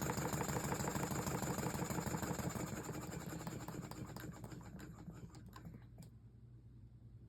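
A Willcox & Gibbs chain stitch sewing machine, belt-driven by a Tiny Power model steam engine, runs with a rapid fine clatter. The clicks slow and fade over about six seconds as the machine winds down to a stop.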